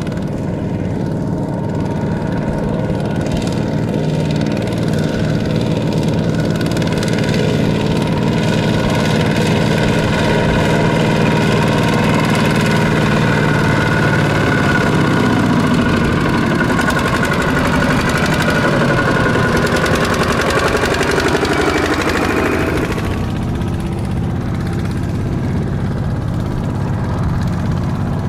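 Single-cylinder diesel engine of a two-wheel walking tractor running steadily under load as it hauls a loaded trailer through mud, growing louder as it approaches. About 23 seconds in the sound drops abruptly to a quieter, more distant engine.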